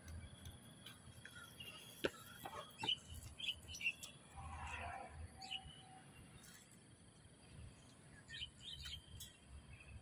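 Wild birds chirping and calling in short, scattered notes, with one sharp click about two seconds in and a low rumble underneath.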